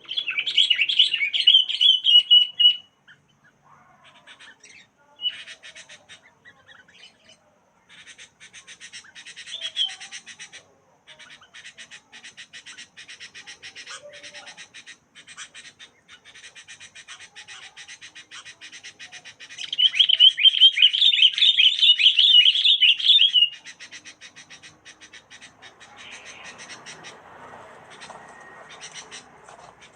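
A bird chirping in two loud spells of rapid, high, squeaky calls, one about three seconds long at the start and another about twenty seconds in. Between them comes a fainter, fast, even ticking chatter.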